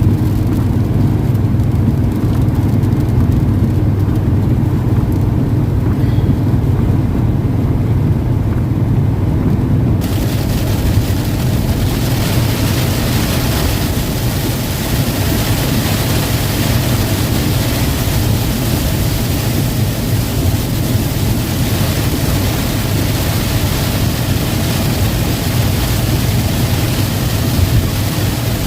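Vehicle engine and road noise heard from inside the cab while driving, a steady low drone. About ten seconds in, a steady hiss of rain and tyre spray joins it.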